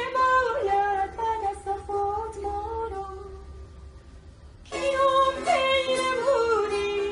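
A voice singing a slow Persian song with a wavering, ornamented melody, accompanied by a long-necked fretted lute. The singing fades a little past halfway, and a new phrase starts about five seconds in over sustained plucked notes.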